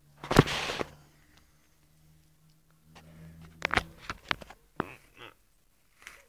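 Handling noise from a small plastic food tray: a brief rustling burst about half a second in, then a run of sharp plastic clicks and taps a little under four seconds in as it is set down on paving stones.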